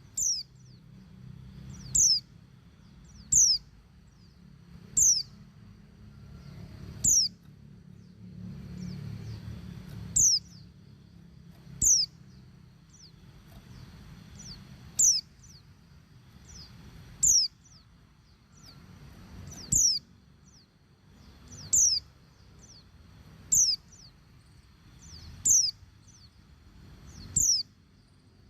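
Female white-eye (pleci) giving short, high, downward-slurred calls, one about every two seconds. This is the call of a female in breeding condition calling for a male.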